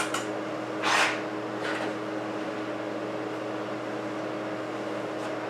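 A steady low machine hum, with a few short scuffing noises; the loudest comes about a second in.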